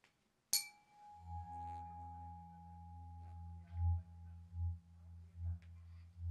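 A tuning fork is struck once about half a second in and rings with a clear, pure tone that fades over a few seconds, as used beside the ear in Chinese ear-cleaning. Under it a low hum starts and swells in regular pulses a little more than once a second.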